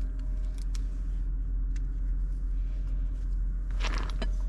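Light metallic clicks and a brief clatter near the end as the truck's four-wheel-drive center hub is handled and lined up on the splines, over a steady low background rumble.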